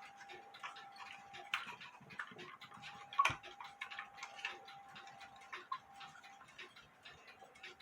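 Faint, irregular light clicks and ticks, with one sharper knock about three seconds in, over a faint steady hum.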